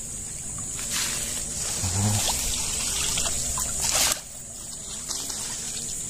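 Creek water splashing and trickling as a wooden stick is pushed through it, with two louder splashes about one and four seconds in, over a steady high-pitched hiss.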